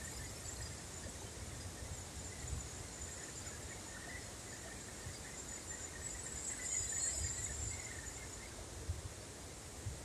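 Faint outdoor ambience of insects: a steady high-pitched hum that swells a little about two-thirds of the way through, over scattered faint chirps and a low rumble.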